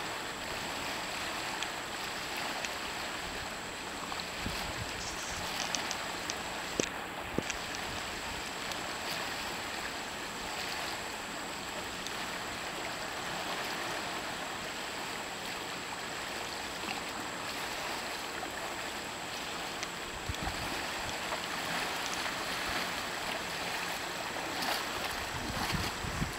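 Shallow river riffle rushing steadily around the kayaks, with a few short knocks about seven seconds in and some low rumbling near the end.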